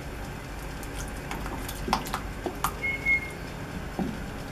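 Wooden spatula knocking and scraping in a frying pan as a thick seafood mixture is stirred: scattered light knocks, with one short high whistling tone about three seconds in.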